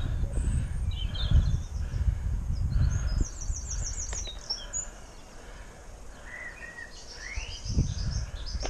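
Wind rumbling on the microphone of a moving bicycle, strongest in the first few seconds and easing off after about five, with small songbirds chirping over it and a fast high trill about three seconds in.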